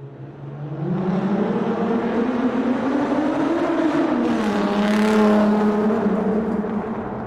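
Car engine in a tunnel, swelling up out of near silence and rising in pitch as it accelerates, then dropping and holding steady. A rush of tyre and air noise peaks about five seconds in, and the sound fades near the end.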